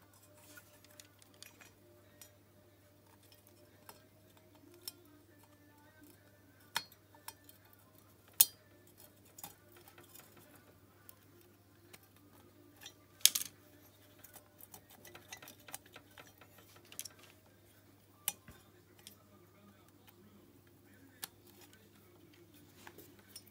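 Light metal clicks and taps of a piston and its rings being eased into the cylinder of a small Honda-clone four-stroke engine, with two sharper clicks about eight and thirteen seconds in, over a low steady hum.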